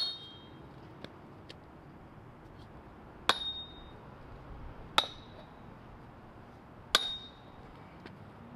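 A hammer striking steel four times, a second and a half to three seconds apart, each blow ringing briefly with a high metallic ping, with a few light taps in between.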